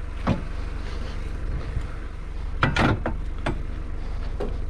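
Aluminium kick scooters being handled, with a few knocks and clanks; the loudest cluster comes a little under three seconds in. Underneath is a steady low hum of a vehicle engine idling.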